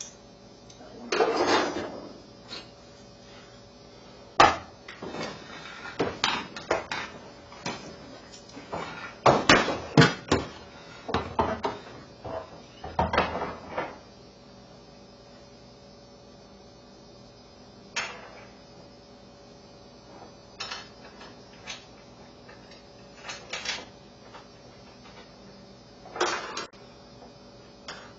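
Irregular clinks, knocks and rattles of screws, bits and tools being handled. There are several louder clattering bursts in the first half and again near the end.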